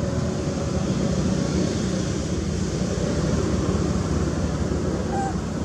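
Steady low rumbling background noise, with a brief faint chirp about five seconds in.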